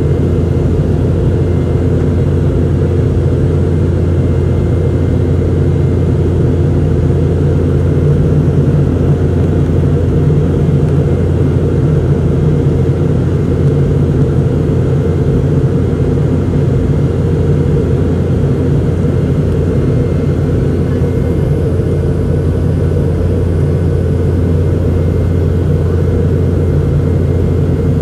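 Boeing 717-200 cabin noise in the climb after takeoff, heard from an aft window seat near the jet's two rear-mounted Rolls-Royce BR715 turbofan engines. It is a steady low drone with several steady hum tones and an even hiss of air over it.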